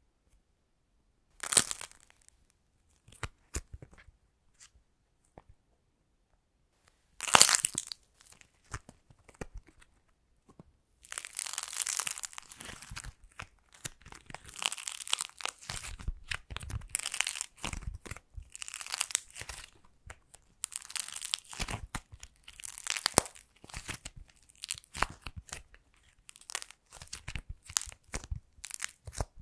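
A dried clay cake slice being broken up by hand: two sharp cracks, then from about a third of the way in a steady run of crackling and tearing as the clay is crumpled and pulled apart.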